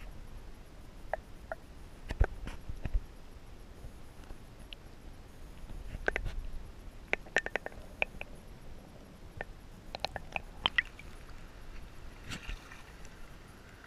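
Muffled underwater sound picked up through a GoPro's waterproof housing in a shallow stony stream: scattered clicks and knocks over a faint low rumble, bunched in two clusters. Near the end the camera breaks the surface and a brighter hiss of moving water comes in.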